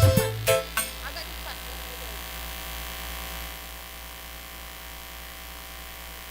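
The last notes of dangdut music end within the first second, leaving a steady electrical mains hum.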